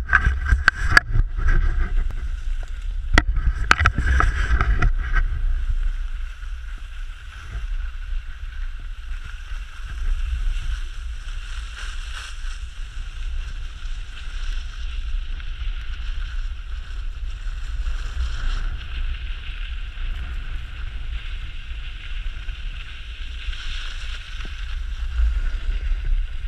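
Wind rumbling on the microphone of a GoPro held low on a ski pole during a downhill ski run, with a steady hiss of skis sliding over snow. A cluster of sharp knocks and clicks comes in the first few seconds.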